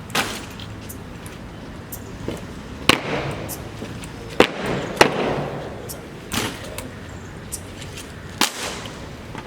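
Cadets' rifles being slapped and struck in a rifle drill routine: about six sharp, irregularly spaced cracks, some with a short echo.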